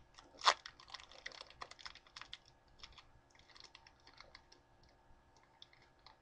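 Foil wrapper of a Pokémon trading-card booster pack being handled and opened: one sharp crackle about half a second in, then a run of small irregular crinkles and clicks.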